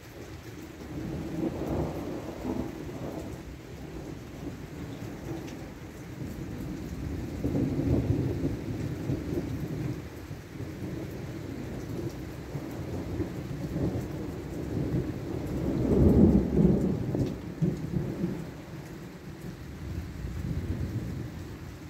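Thunder rumbling in long, rolling swells over a steady hiss of rain, three rolls in all, the loudest about three-quarters of the way through.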